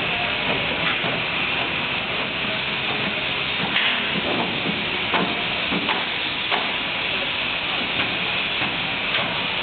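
Twin-shell V blender running: a steady hissing machine noise with irregular light knocks every second or so.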